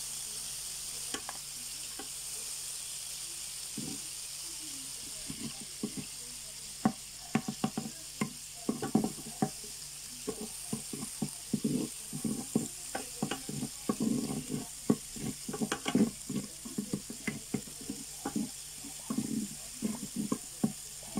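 Margarine sizzling as it melts in a nonstick pan, a steady hiss, while a wooden spatula stirs and knocks against the pan. The knocks come thick and fast from about seven seconds in.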